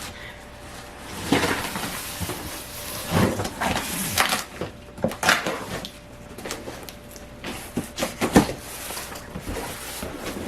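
A cardboard shipping box and its packing being handled and opened: irregular rustling and scraping with a few sharp knocks, the sharpest a little past eight seconds in.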